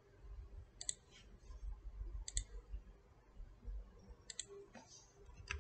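Computer mouse clicking: about three sharp clicks spaced roughly a second and a half apart, each a quick double tick, with another cluster of clicks near the end, over a faint low rumble.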